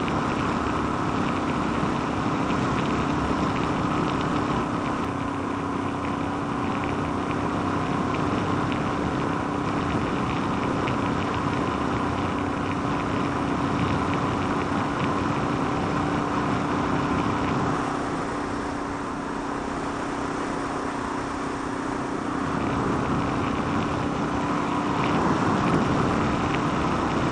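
Suzuki DR650's single-cylinder engine running at a steady cruise, under loud rushing wind noise around the rider. The wind is what the rider can 'really hear'; he reckons the short windshield needs about 2 more inches to quiet it. The engine and wind ease a little past the middle and pick up again near the end.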